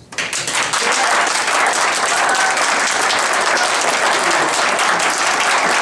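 Indoor audience applauding, many hands clapping together; it breaks out suddenly and holds at a steady level.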